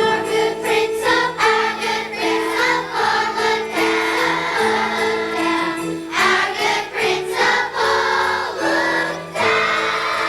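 Christmas music with jingle bells shaking along over held, changing accompaniment notes.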